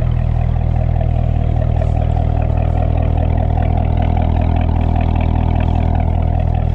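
Car engine idling steadily, a low, even rumble with a slight regular pulse.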